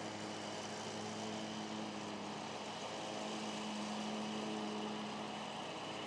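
Electric motor and propeller of a small scratch-built foam RC plane humming steadily in flight, a little louder midway through.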